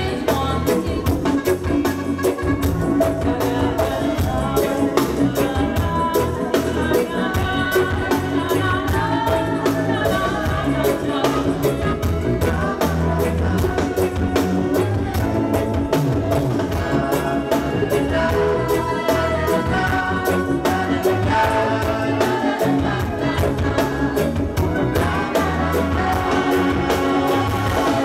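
A large live band playing with several singers: electric guitars, drums, accordion and trumpet, on a steady beat.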